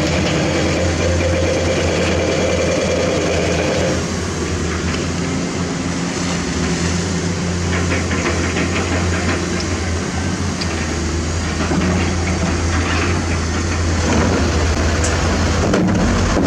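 Heavy diesel construction machinery, excavator and dump truck engines, running steadily with a deep low drone. A higher hum drops away about four seconds in.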